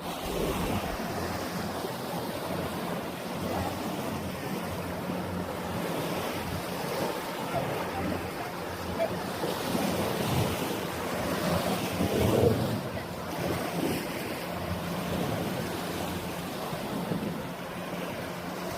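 Small waves washing onto a sandy beach, with wind buffeting the microphone. A faint low steady hum runs underneath.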